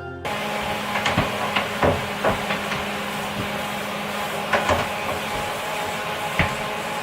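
Electric sander running with a steady whir, with several sharp knocks and clatters as it is handled against the trailer's surfaces.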